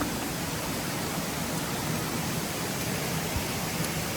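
Steady rush of water from many small waterfalls pouring straight off a hillside into a river.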